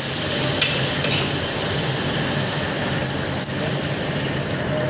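Sliced onions and garlic sizzling steadily in hot oil while being stirred with a spatula, with a couple of light clicks about a second in.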